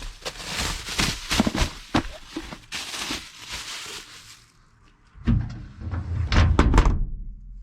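Rustling, knocks and thuds of paper bundles and junk being handled and dropped, with a short lull. A low vehicle engine rumble comes in about five seconds in, under further loud knocks.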